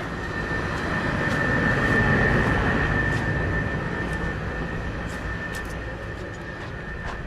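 Engine noise of a passing vehicle, swelling to its loudest about two seconds in and slowly fading away, with a steady high-pitched tone underneath throughout.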